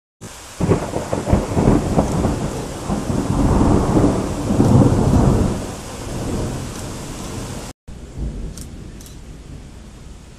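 Thunder rolling over steady rain. It opens with a few sharp cracks, builds to a long deep rumble loudest around four to five seconds in, then dies away. After a brief dropout near the end, rain alone continues more quietly.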